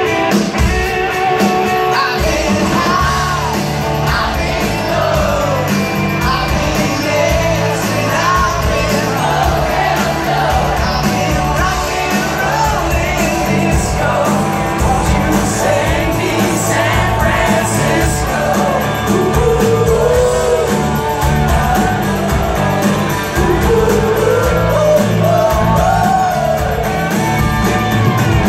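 Live rock band playing, with a lead vocal sung over electric guitars, keyboard and drums, heard from the audience in a large hall.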